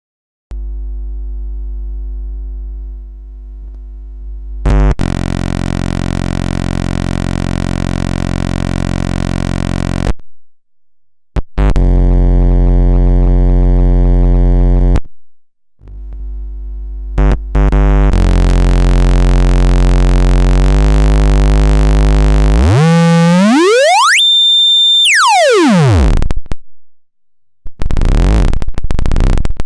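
Homemade CEM3340 voltage-controlled oscillator sounding test tones: a steady low note rich in overtones whose tone changes several times, broken by short cuts. Near the end its pitch sweeps smoothly up to a high tone and back down.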